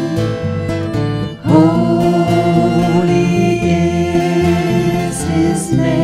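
Slow sacred music for a responsorial psalm: a melody of long held notes over guitar and string accompaniment, with a brief break and a new phrase beginning about a second and a half in.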